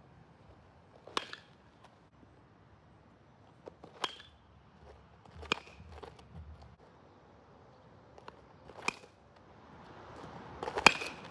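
Baseball bat hitting tossed balls in batting practice: a sharp crack with a brief ringing ping at each contact, repeated every couple of seconds, the loudest near the end.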